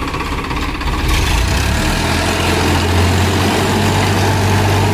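Farmtrac 45 Valuemaxx tractor's diesel engine running under load, driving a Sonalika rotavator whose blades churn dry soil and break up brick rubble. About a second in, the sound grows louder as the rotavator digs in.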